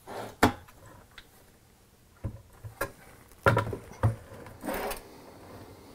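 Knocks and clunks of a sheet-metal benchtop reflow oven being handled and tipped onto its side on a wooden turntable: several separate sharp knocks, with a brief scraping rustle near the end.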